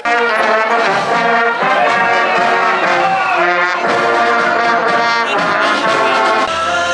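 High school marching band playing loudly, brass instruments such as trombones and trumpets carrying the tune in full chords.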